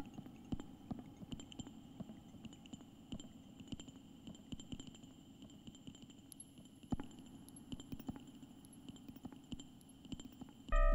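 Sparse experimental electronic noise music: quiet irregular clicks and crackles over a steady low hum and faint high steady tones. Right at the end a loud low tone starts suddenly.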